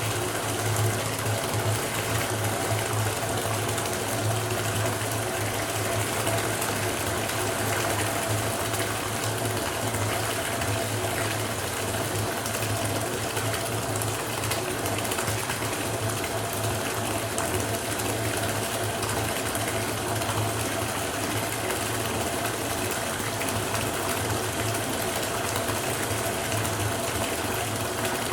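Water running from a tap into a bathtub as it fills, a steady even rush with a constant low hum underneath.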